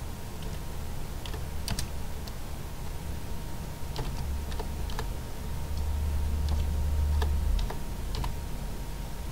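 Keys tapped on a computer keyboard: a handful of scattered, irregular key presses over a steady low hum.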